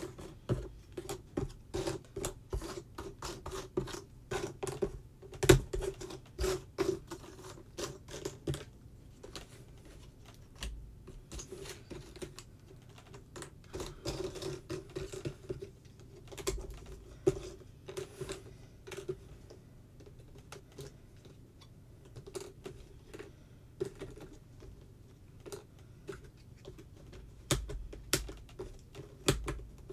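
Jigsaw puzzle pieces clicking and tapping as they are picked up, shuffled and pressed into place in a puzzle tray. The clicks are irregular and busiest in the first nine seconds.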